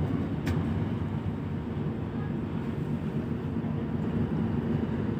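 Steady low rumble on board the passenger ship KM Kelimutu: ship's engine noise mixed with wind on the microphone, with a single sharp click about half a second in.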